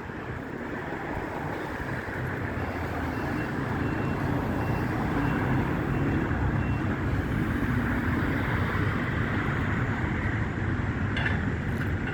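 Heavy diesel machinery running on a demolition site, growing louder over the first few seconds, under a rough rush of wind. Faint high beeps repeat evenly for a few seconds in the middle.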